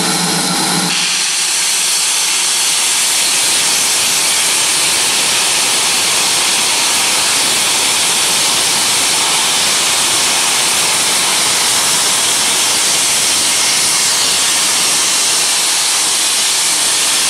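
Loud, steady hiss of steam escaping from the open cylinder drain cocks of standing steam locomotives, GWR 0-6-2T 5619 and BR Standard Class 4 2-6-0 76084, with no exhaust beats. The hiss begins about a second in, as a low hum cuts off.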